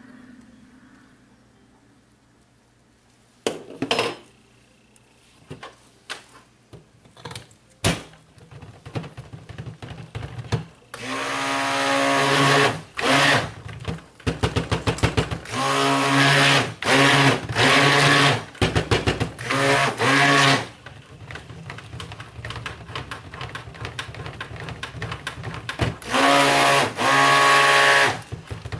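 Immersion (stick) blender pulsed in a tub of cold-process soap batter, buzzing in bursts of a second or two. A few quick blips come first, then a string of longer bursts, and one more run near the end.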